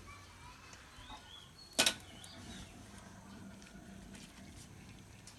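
Quiet background with one sharp double click about two seconds in, and a few faint high chirps around it.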